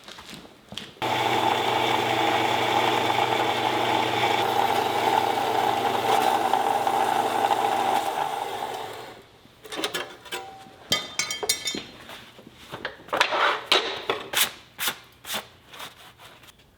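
Bandsaw running and cutting through a metal tube for about eight seconds, then stopping. Afterwards a series of sharp knocks and clanks of metal being handled.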